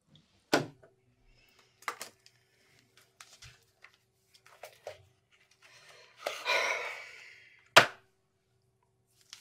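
Sparse handling noises of small objects on a bedside table and in the hands: a few sharp knocks and clicks, a longer rustling or breathy sound about six seconds in, and a loudest single knock just after it.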